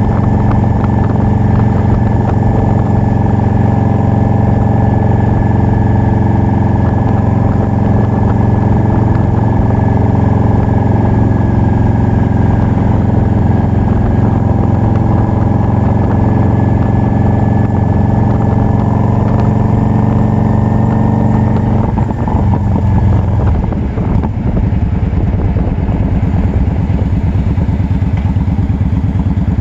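Yamaha V-Star 650's air-cooled V-twin running through Vance & Hines Longshot exhaust pipes, holding a steady note at cruising speed. About three-quarters of the way through the engine speed drops, with a couple of brief dips in loudness, and it carries on at a lower, pulsing beat.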